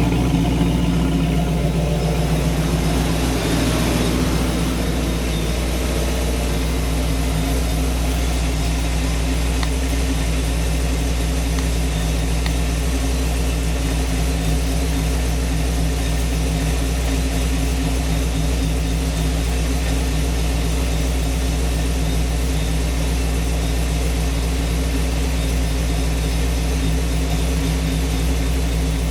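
Supercharged 5.0 L V8 of a 1994 Ford Mustang GT idling on its first run after a rebuild. It is a little louder for the first few seconds, then settles to a steady idle.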